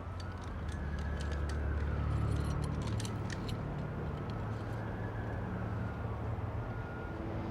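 A police siren wailing in two slow rises and falls over a low, steady car engine idle, with a few light clicks.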